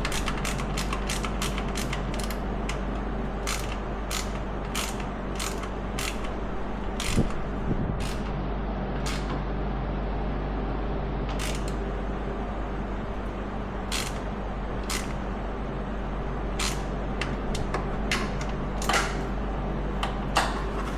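Hand-tool work on a quad: a quick run of clicks at about four a second at the start, then scattered single clicks and knocks, over a steady low hum.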